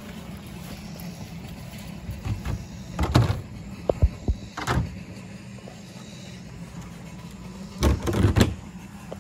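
A few short knocks and rattles of handling, about three seconds in, around four to five seconds in and again about eight seconds in, over a steady low hum.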